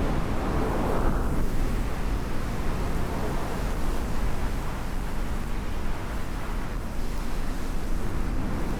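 Strong wind blowing on the microphone: a steady, low, rumbling noise that rises and falls.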